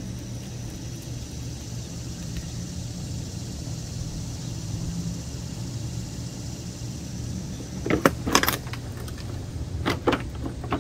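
Radiator being worked loose and lifted out of its plastic cooling-box housing: a cluster of sharp knocks and rattles about eight seconds in and a few more near the end, over a steady low hum.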